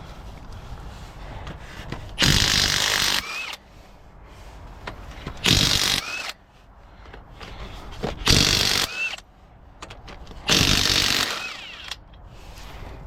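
Cordless impact wrench with a 7/8 socket spinning off lug nuts, in four separate bursts of about a second each.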